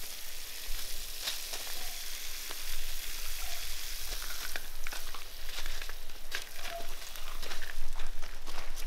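Garden hose spraying water onto gravel and a foal's legs, a steady hiss, with a few short crunches scattered through it.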